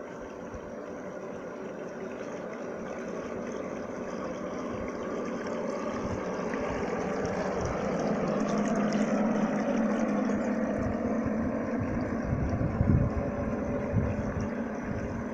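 Radio-controlled model cabin-cruiser boat running on a pond, its small motor and propeller buzzing steadily with water splashing at the stern, growing louder as it passes close about halfway through and easing off as it turns away. A few low thumps near the end.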